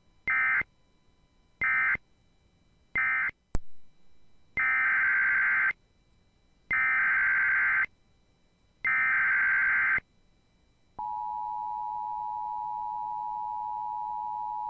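Emergency Alert System SAME data bursts: three short end-of-message bursts, then three longer header bursts, each a burst of rapid two-pitch digital tones. About a second later the steady two-tone EAS attention signal starts and holds to the end.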